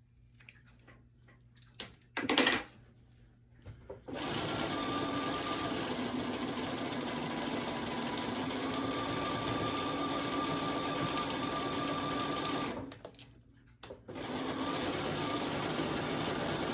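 Bernina sewing machine stitching binding on with its binder attachment, running steadily, stopping briefly about two-thirds of the way through and starting again. Before it starts there are small clicks and one brief loud knock about two seconds in.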